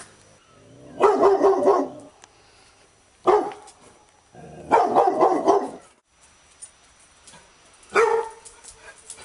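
Labrador retriever barking in separate bouts: two sharp single barks and two longer runs of about a second each.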